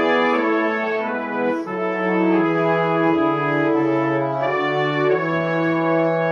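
Background music of brass instruments playing slow, held notes in harmony over a moving bass line.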